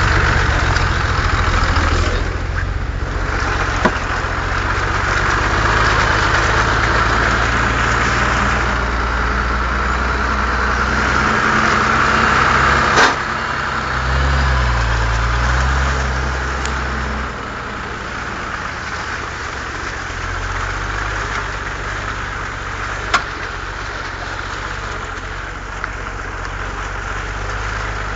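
Nissan Patrol 3.3 straight-six turbo-diesel engine running, its revs rising briefly about halfway through before it settles into a lower, quieter running. Two sharp knocks stand out, one near the middle and one later on.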